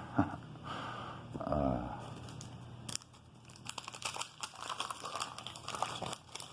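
Wax-paper wrapper of a 1988 Donruss card pack crinkling and tearing as it is ripped open, a quick run of crackles.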